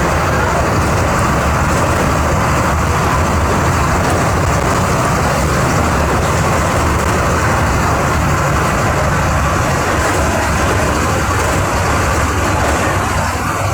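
Diesel engine of a 2008 Volkswagen 17.230 EOD bus running steadily, with a strong low drone.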